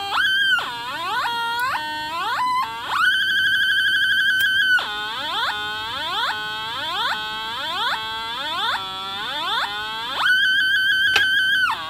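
Breadboard sound-effects circuit putting out electronic tones: a string of repeated rising chirps, about two a second. The chirps are broken by a steady high beep from about three to five seconds in and again near the end.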